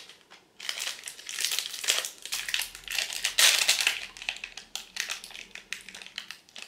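Plastic wrapper of a Corny hazelnut muesli bar being opened and crinkled by hand. Dense crinkling runs for about three seconds, loudest just past the middle, then thins to a few light crackles.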